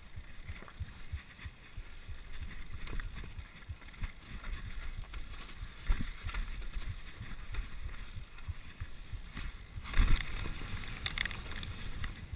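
Downhill mountain bike rattling and jolting over a rough dirt trail, tyres rumbling on the ground with wind buffeting the microphone. There are heavier knocks about six seconds in and again at about ten seconds.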